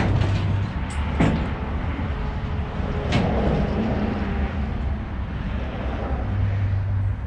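Demolition work: a few sharp knocks and a clattering of wooden boards being knocked loose, over a steady low rumble.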